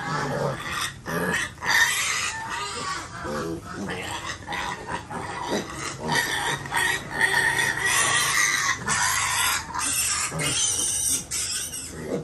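A pen full of piglets calling at once: high squeals and lower grunts overlap without a break.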